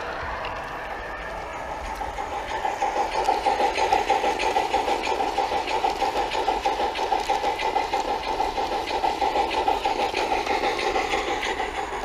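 G-scale garden railway train running on outdoor track, with a steady hum and a fast, even pulsing. It grows louder about two and a half seconds in and eases off near the end as the locomotive and coaches pass close by.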